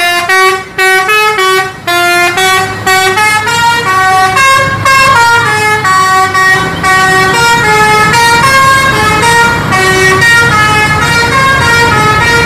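Multi-tone musical bus horn of the Indonesian 'telolet' kind playing a long melody of stepped notes, several pitches sounding together at times, over passing traffic.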